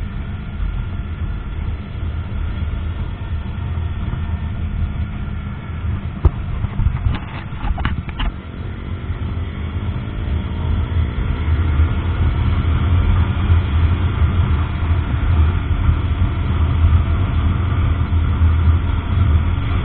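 Onboard sound of a KTM Duke 125's single-cylinder four-stroke engine pulling the bike along at road speed, mixed with wind and road noise. The engine pitch rises and falls around ten seconds in, a few short knocks come six to eight seconds in, and it grows louder toward the end.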